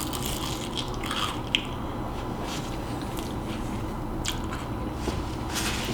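Close-miked eating: bites and chewing with soft crunches and wet mouth sounds in short scattered bursts, over a low steady hum.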